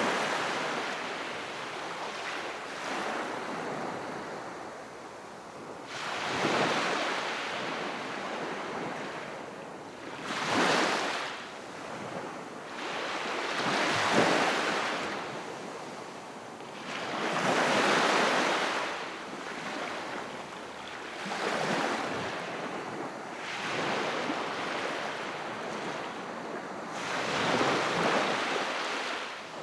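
Very gentle sea waves washing onto the shore. The surf swells and fades about every three to four seconds.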